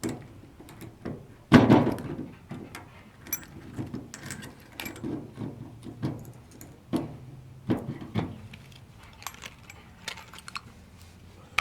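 Small metal clicks and rattles of a Ford ignition lock cylinder and its key being handled and worked into the ignition switch, with one louder knock about a second and a half in.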